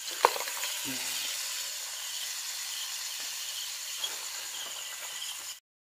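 Boiled land crabs dropped into a pan of hot melted butter and onion, sizzling steadily after a sharp knock of the spoon on the pan near the start. The sizzle cuts off abruptly just before the end.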